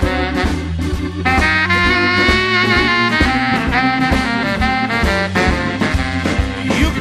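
Instrumental break of a blues-rock song: long held melodic notes and runs over a steady bass and drum beat.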